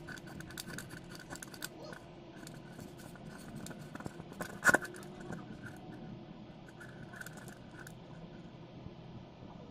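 Hands working the metal shaft and body of an old Usha ceiling fan: scraping and small clicks of metal parts, with one sharp click a little under five seconds in.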